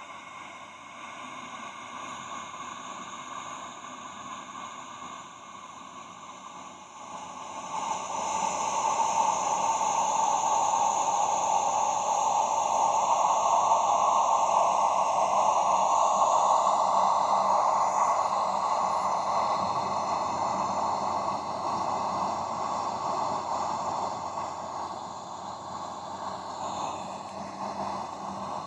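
An ambient drone: a steady rushing noise that swells about seven seconds in and slowly eases off toward the end, over a faint low hum.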